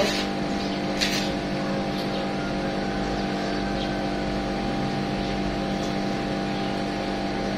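Steady machine hum from a running engine or motor, holding several even tones over a low rumble, with a faint click about a second in.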